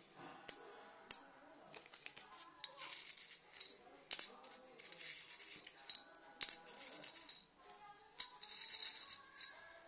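A small shiny metal piece clicking and scraping against the face of a large old One Anna coin, with two sharp clicks in the first second, then irregular bursts of rattling scrapes.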